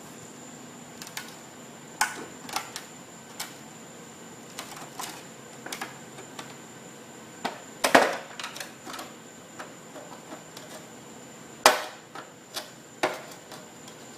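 Irregular sharp plastic clicks, snaps and knocks as a car headlight lens is pried off its housing with screwdrivers along the heat-softened seal; the loudest snaps come about eight and twelve seconds in.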